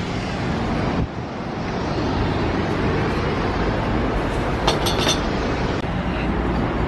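Steady street traffic noise with a heavy low rumble, and a few light clinks about five seconds in.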